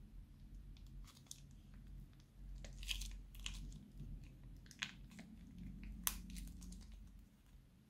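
Thin plastic piping bag crinkling and crackling as a hand squeezes and twists it to empty out the last of the slime. The crackles come in scattered bunches, the sharpest a little after 3 seconds, near 5 seconds and about 6 seconds in.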